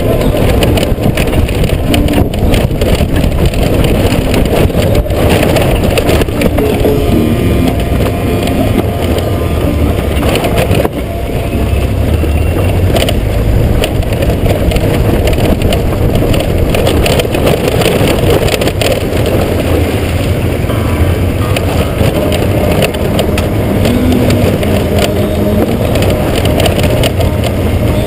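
Honda GoldWing GL1500 flat-six motorcycle engine running at low speed on a gravel track, with the tyres rolling over loose gravel and wind buffeting the helmet-mounted microphone.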